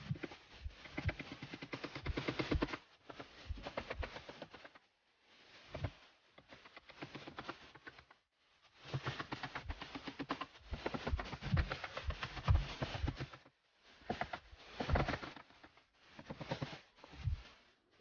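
Two claw hammers driving nails into wooden shuttering planks for slab formwork: quick runs of sharp overlapping strikes, several a second, broken by short pauses.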